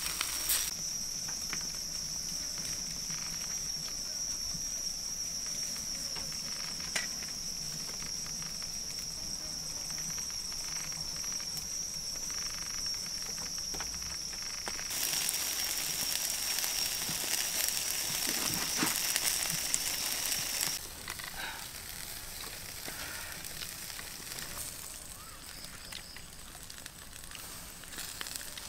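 Insects droning on one steady high pitch, with a few faint clicks and crackles; the drone stops about twenty seconds in, leaving a quieter hiss.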